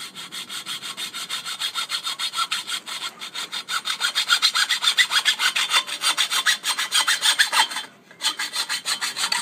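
A saw cutting through a bicycle's metal frame tube just past the gusset, in rapid, even back-and-forth strokes. It stops briefly about eight seconds in, then starts again.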